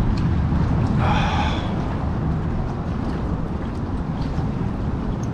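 Steady low rumble of wind buffeting the microphone and current moving around the kayak, with one sharp breath about a second in.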